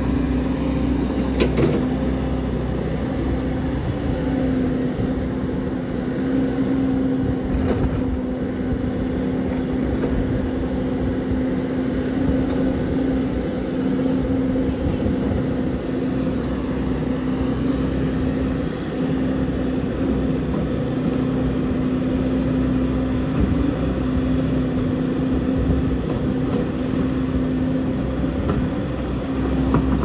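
A large backhoe's diesel engine running steadily as the machine moves and levels earth, a constant pitched drone over low rumble.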